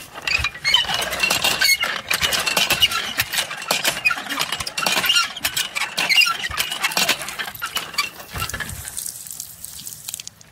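Cast-iron hand water pump being worked stroke after stroke, its handle and linkage squealing and clanking, metal on metal. The pumping stops about eight and a half seconds in.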